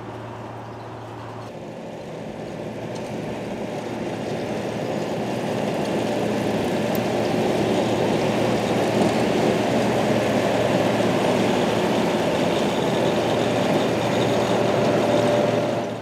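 Matrot M41 sugar beet harvester at work, its air-cooled six-cylinder Deutz engine and cleaning machinery running steadily. The sound grows louder over the first few seconds and carries a faint steady whine, then fades out at the very end.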